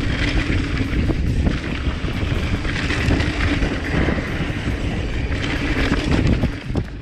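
Mountain bike riding fast down a dirt singletrack: a steady rush of wind on the microphone and knobby tyre noise on the dirt, with scattered clicks and rattles from the bike over the trail.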